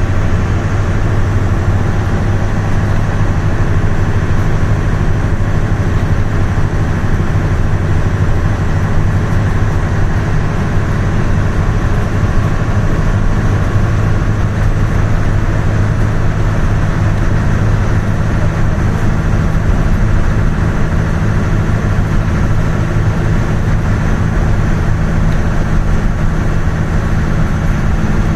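Steady road and engine noise of a vehicle driving at speed, dominated by a constant low hum.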